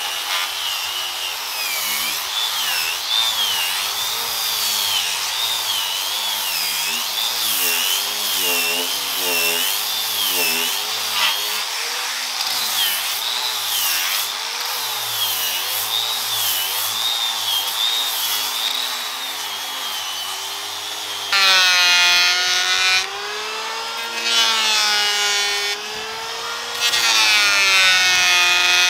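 Handheld power sander with a sanding disc whining as it sands wooden deck boards, its pitch wavering as the load changes. About three-quarters of the way in, a louder electric hand planer takes over, shaving wood in short passes with brief pauses.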